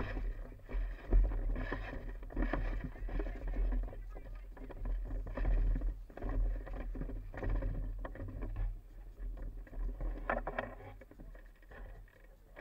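Wind rumble and handling noise on an action camera's microphone, with irregular rustling surges as the player moves through long grass carrying an airsoft rifle.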